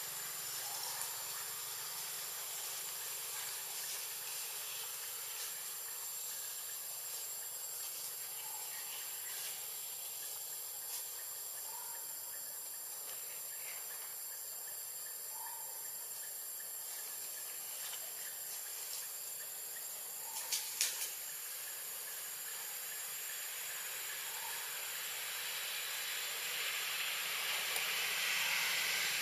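Steady high-pitched hiss of forest ambience, with a few faint short calls now and then and a quick run of clicks about twenty seconds in.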